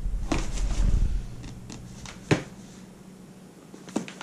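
Handling noises as a cardboard box is lifted out of a packed box: low rumbling bumps in the first second, then a few sharp taps and knocks, the loudest about two seconds in.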